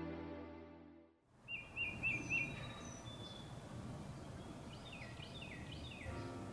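Soft film music fading out in the first second, giving way to outdoor ambience with small birds chirping: a quick run of four repeated chirps, then a series of falling whistled notes about five seconds in.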